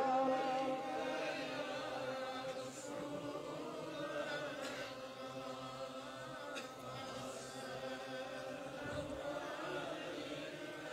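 A group of men's voices chanting durood (blessings on the Prophet) softly in unison, many voices overlapping, faint.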